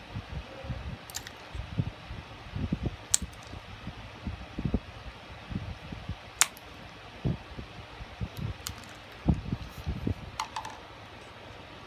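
Scissors snipping a plastic drinking straw into short pieces: several sharp snips a couple of seconds apart, with soft knocks of handling on paper between them over a steady low hiss.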